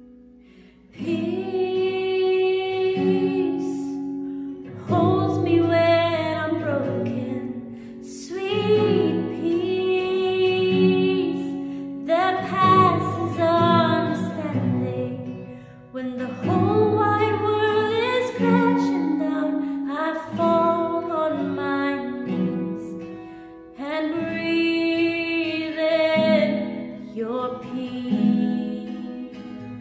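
A woman singing a melody in phrases of about three to four seconds with short breaks between them, over guitar accompaniment.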